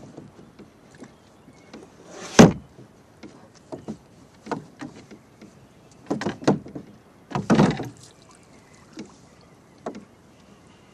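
Knocks and thumps against a small fishing boat's hull as gear is moved about: one loud thump about two seconds in, a few lighter knocks after it, and a short rattling clatter near the eight-second mark.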